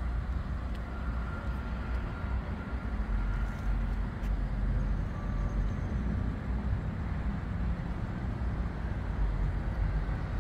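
Steady low outdoor background rumble with no distinct knocks or clunks.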